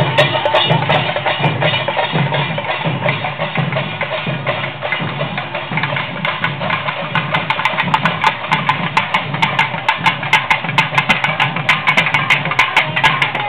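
Procession drummers beating rope-laced barrel drums with sticks in a rapid, continuous rhythm.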